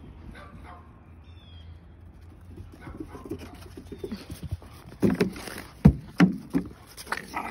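Dogs playing, with a run of short, sudden low woofs and scuffles in the second half.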